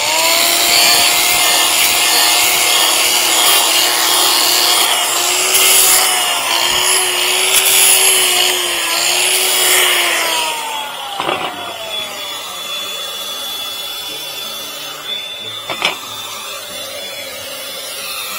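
Handheld electric power tool cutting into wood for about ten seconds, its motor pitch dipping and recovering under load, then spinning down with a falling whine. Two sharp knocks follow in the quieter second half.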